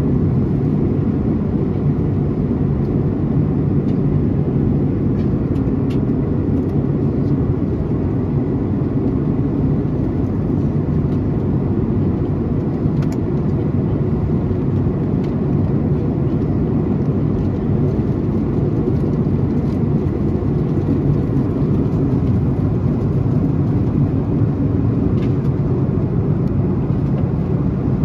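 Steady cabin drone of a Boeing 737-900ER in cruise, heard from a window seat beside the engine. The CFM56-7B turbofan and the airflow over the fuselage make a dense, even low rumble.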